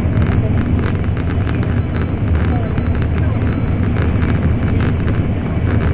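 Cabin noise inside an N700 series Shinkansen running at speed: a loud, steady, deep rumble with a hiss of rushing air over it.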